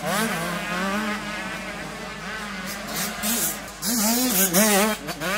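85cc two-stroke motocross bike engines revving on and off the throttle, the pitch rising and falling over and over. The loudest burst of revs comes about four seconds in.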